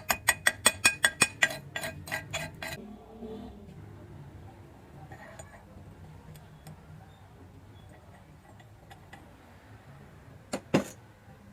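Metal struck in a quick series of ringing taps, about five a second, stopping a few seconds in. Two sharp knocks come near the end.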